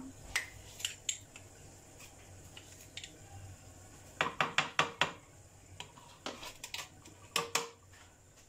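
A metal spoon clinking against a glass blender jug as spoonfuls of sugar are tipped in: a few light taps in the first second, a quick run of about five clinks around four seconds in, and a few more near the end.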